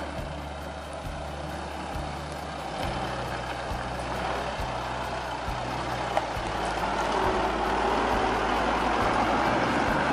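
Isuzu MU-X's 3.0-litre turbo-diesel crawling over sandstone rock, its engine and tyre noise growing louder as it comes close in the second half, with one sharp knock about six seconds in. A bass-heavy music track with a steady pulse plays underneath.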